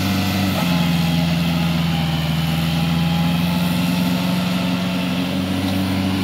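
Kubota L4508 tractor's diesel engine running steadily, the tractor's wheels sunk deep in paddy-field mud; its note shifts slightly about half a second in, then holds level.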